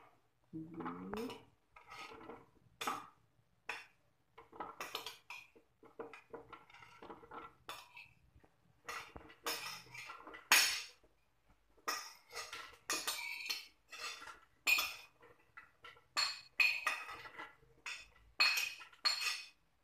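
Metal spoon scraping and tapping against a china plate and the rim of a blender jug as fresh chillies are pushed into the blender: irregular clinks and knocks, more frequent and louder in the second half.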